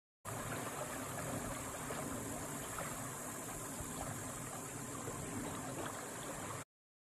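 Steady rushing of river water, with an even high hiss over it; it cuts in just after the start and cuts off abruptly near the end.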